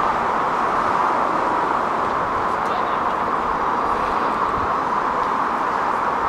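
Steady outdoor rail-and-traffic background noise, an even hiss that holds level throughout with no single event standing out.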